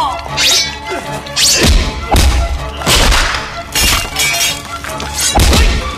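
Action-film background music with a string of dubbed fight sound effects: heavy punches, thuds and crashes landing every second or so, several with a deep boom.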